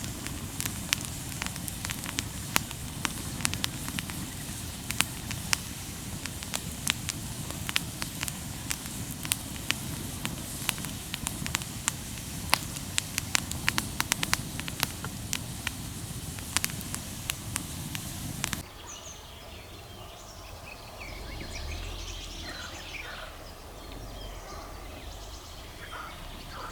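Campfire of damp wood crackling, with frequent sharp pops over a steady hiss. About two-thirds of the way through it cuts off abruptly to quieter open air with birds chirping and a low rumble.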